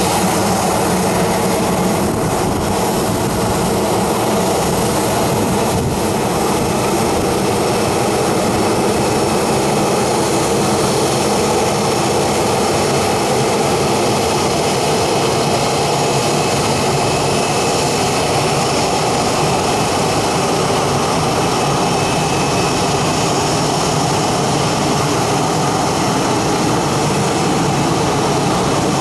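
Boeing 737-800's CFM56 turbofan jet engines running with a steady, loud drone.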